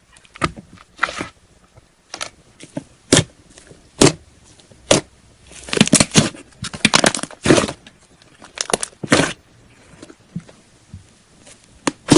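Slime being squeezed and stretched by hand, giving irregular sharp pops and crackles, thickest about six to eight seconds in.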